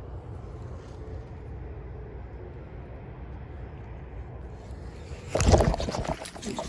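Steady low wind rumble on the microphone, then about five seconds in a sudden loud water splash lasting about a second: a bass striking a topwater frog bait.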